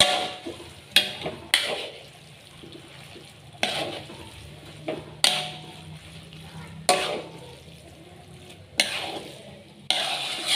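Metal spatula knocking and scraping against a large metal wok as fried noodles are stirred and tossed: about eight sharp clanks with a short ring, spaced irregularly.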